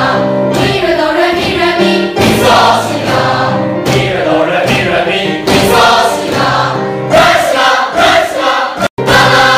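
Background music with a choir singing over sustained low notes. The sound drops out for a moment near the end.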